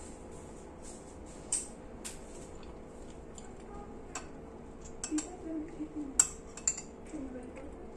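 Cutlery and dishes clinking during a meal: a handful of scattered sharp clinks, the loudest about six seconds in, with faint low voices between.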